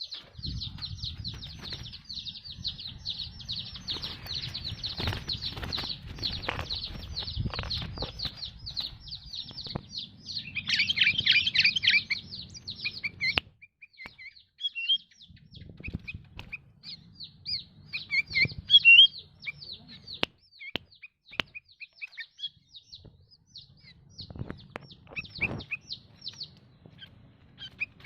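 Sooty-headed bulbul (kutilang) calling in fired-up, aggressive form: a fast run of high chirps for the first half, a louder burst of lower notes a little before the middle, then scattered calls. Sharp clicks and a low rumble run under the calls.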